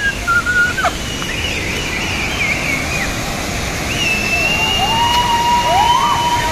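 Steady rush of a large waterfall, Kynrem Falls, in heavy monsoon flow. Several thin, high wavering tones glide and hold above it for a second or two at a time.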